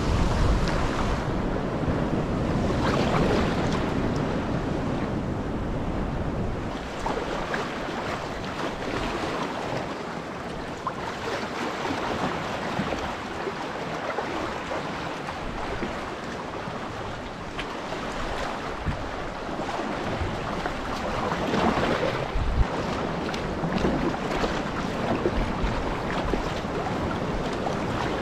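Sea water splashing and lapping around a kayak, with wind buffeting the microphone; the rushing swells louder a few seconds in and again about three-quarters of the way through.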